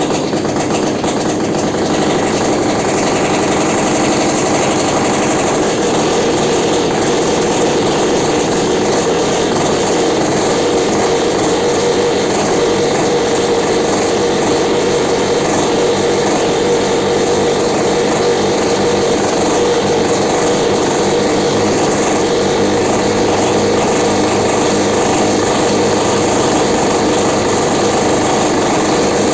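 The freshly rebuilt engine of a Belarus MTZ-52 tractor running steadily at an even speed.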